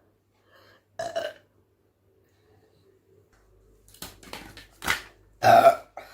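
A person belching from carbonated soda. One short burp comes about a second in, then a quick run of burps near the end, the last the loudest and longest.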